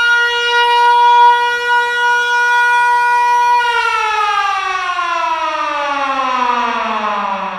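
Siren sounding one steady, loud tone, then, about three and a half seconds in, its pitch starts falling slowly and steadily as it winds down.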